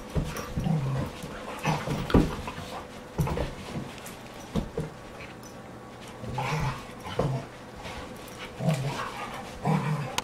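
Two dogs play-fighting, making short growls and grunts in irregular bursts about once a second.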